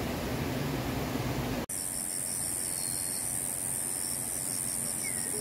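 Steady rushing noise with a low hum that cuts off abruptly about one and a half seconds in, giving way to a steady high-pitched drone of night insects such as crickets, with a fast regular pulsing chirp and a couple of brief higher calls.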